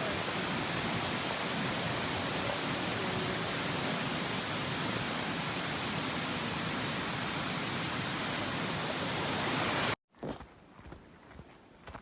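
Steady, even rushing noise spread across all pitches, like loud wind or water, that cuts off abruptly about ten seconds in. After the cut it is much quieter, with a few sharp taps.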